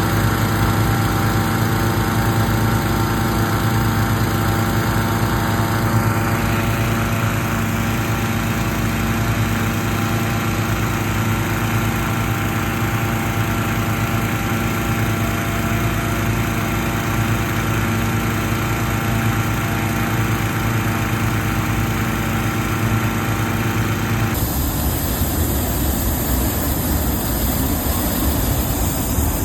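An engine running steadily with an even hum. About 24 seconds in it cuts off abruptly and gives way to a different, rougher noise.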